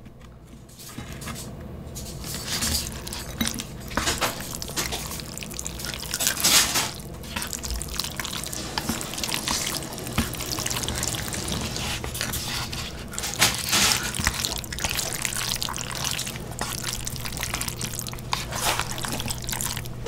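Chopsticks mixing jjajangmyeon noodles through thick black bean sauce in a disposable paper bowl: irregular wet, sticky squelches and clicks of sauce-coated noodles being turned over.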